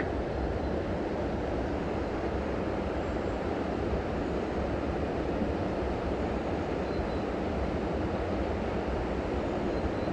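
Steady rush of river water at an outflow, an even noise with no breaks.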